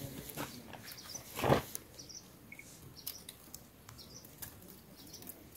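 Small birds chirping in short, high calls, with scattered clicks and one louder knock about one and a half seconds in.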